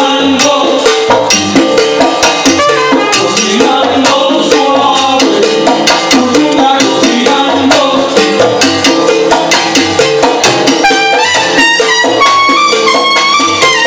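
Live salsa band playing: trumpets over a driving percussion rhythm, heard from on stage beside the horn section. Near the end a melody line steps upward in pitch.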